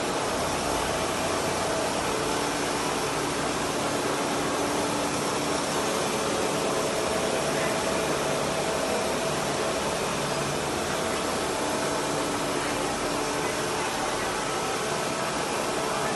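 Steady mechanical noise of factory machinery running, an even whirring hiss with faint steady tones coming and going.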